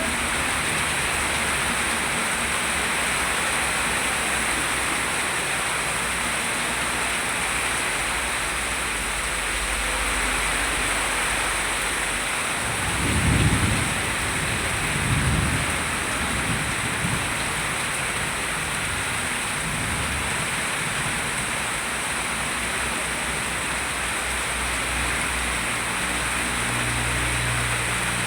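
Steady rain falling and pattering on surfaces. A little past the middle come two brief low rumbles, which are the loudest moments.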